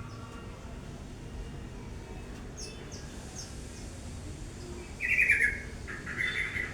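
Prinia calling: a few faint high chirps, then two loud harsh calls about five and six seconds in.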